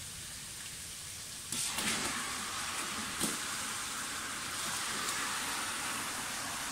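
Hot oil and ghee with garlic-ginger and green chilli paste frying in a large metal pot; about a second and a half in, raw chicken pieces tipped in from a bowl set it sizzling louder, with a few knocks of pieces and ladle against the pot.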